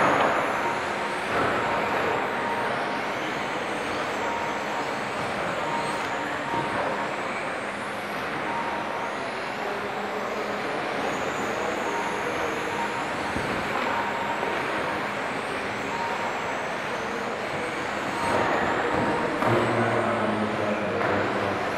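Several 1:10 scale 4WD electric RC touring cars racing, their motors whining up and down in pitch as they speed up and slow for corners, over a steady hiss.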